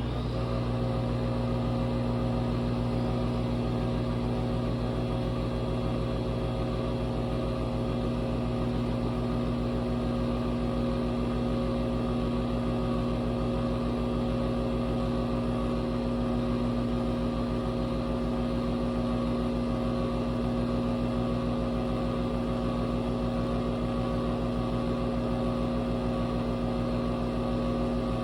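Nespresso machine brewing a double espresso: its pump and motor run with a steady electric hum, starting abruptly and holding level.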